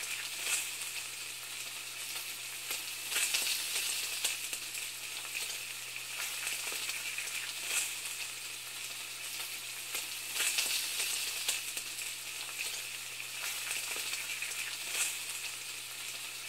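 A steady crackling hiss, like food sizzling in a pan, that swells every few seconds, over a low steady hum.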